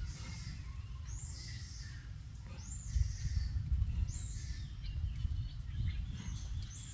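Outdoor ambience: a steady low rumbling noise with a few short, high chirping calls about a second and a half apart.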